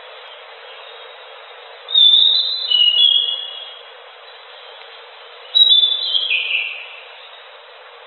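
Anis macan (chestnut-backed thrush) singing: two short phrases of high whistled notes, the first about two seconds in and the second near six seconds stepping down in pitch, over a steady hiss.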